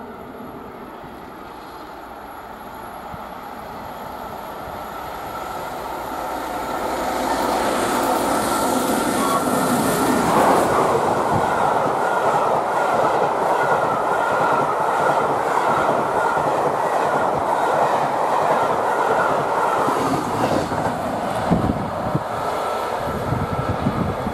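Peppercorn A1 Pacific steam locomotive 60163 Tornado and its train passing at speed. The sound grows louder over the first several seconds as the train approaches, with a steady whistle tone, then the coaches go by in a long, loud rush and clatter of wheels on the rails.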